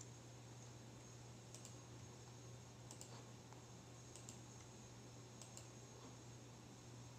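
Faint clicking of laptop keyboard keys being typed on: four short double clicks about one and a quarter seconds apart, over a steady low hum.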